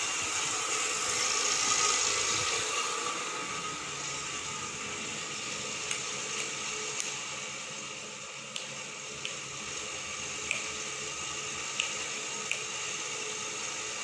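Electric room fan running with a steady whirring hiss and a very noisy hum. A few light clicks come in the second half.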